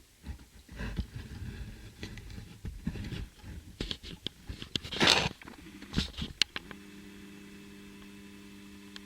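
Handling sounds: small clicks, knocks and rustles, with one louder rustling burst about five seconds in. About two seconds later a steady low hum starts and holds.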